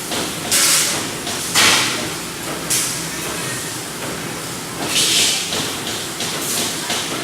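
Robotic welding machine running, a steady mechanical noise broken by five short bursts of sharp hissing; the longest come about half a second in and again about five seconds in.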